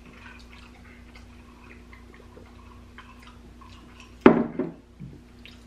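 Faint scattered clicks and clinks from a glass of Coca-Cola with ice being handled and drunk from, then a short loud sound about four seconds in, followed by a smaller one half a second later.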